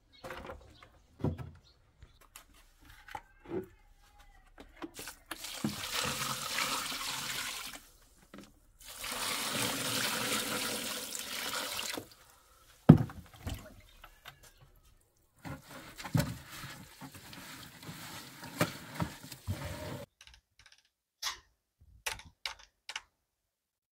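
Water running or pouring in three spells of a few seconds each, with knocks of a plastic scoop against plastic feed troughs as wet bran mash is dished out. The loudest sound is one sharp knock about halfway through.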